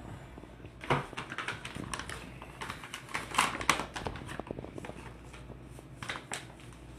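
Paper flour bag crinkling and rustling in a run of short crackles as it is handled and tipped to pour flour into a glass measuring cup.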